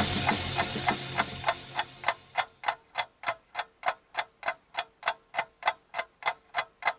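Rock music fades out over the first two seconds, leaving an even ticking of about three ticks a second.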